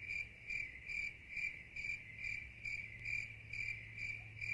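Cricket chirping as an edited-in sound effect: an even train of high chirps, about two a second, over a faint low hum. It starts and stops abruptly and replaces the street sound.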